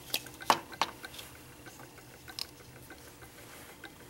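A few light plastic clicks and taps, several in the first second and one more past the middle, from handling a pH test-strip vial. Underneath runs a faint, even ticking from a magnetic stir bar spinning in a beaker on a stirrer plate.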